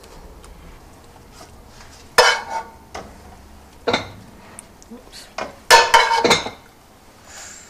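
Metal spoon scraping and clinking against a frying pan and a baking tray while scrambled eggs are scooped into puff pastry cups: a few short clatters, the loudest cluster about six seconds in.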